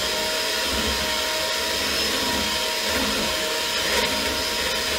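Electric hand mixer running steadily, its beaters whipping coconut cream into whipped cream: a constant motor whine over a steady whir.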